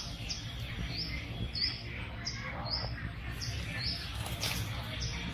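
A small bird chirping over and over, short high chirps about twice a second, over a steady low rumble.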